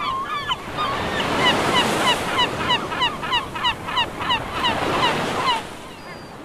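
Gulls crying in a fast series of short calls that slide down in pitch, about three a second, over the steady wash of breaking surf. The sound fades out near the end.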